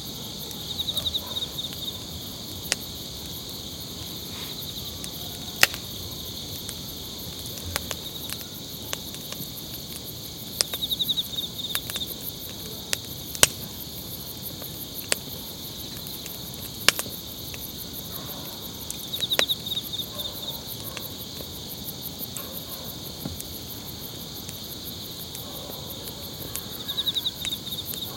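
Night chorus of crickets, with a louder insect trill about every eight or nine seconds. Sharp, scattered pops from burning wood and embers in a metal fire stove stand out above it.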